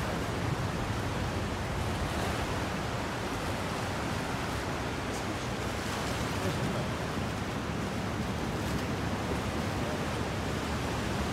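Steady rushing wash of sea water and waves inside a sea cave.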